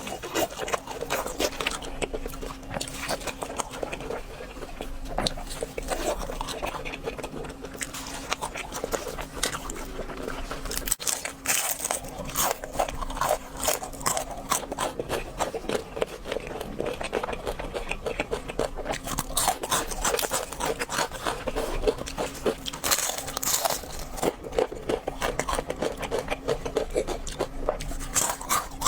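Close-up eating sounds: crispy fried food crunching and crackling under repeated bites and chewing, many sharp irregular crunches throughout.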